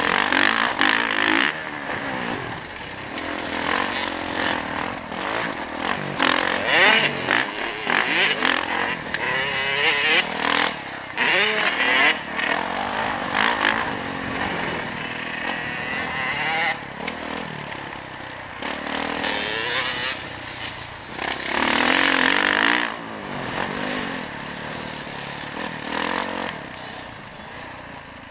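Dirt bike engine heard close up from the bike, its revs rising and falling over and over as it accelerates and backs off around the track.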